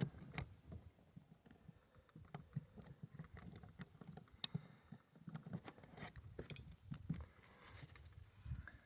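Faint handling noise from a black powder revolver and its loading gear being worked by hand: irregular small clicks and soft knocks.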